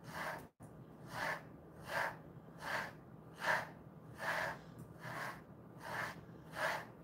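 Pet slicker brush stroking through a Jindo-mix dog's coat: a steady run of soft swishes, about one every three-quarters of a second.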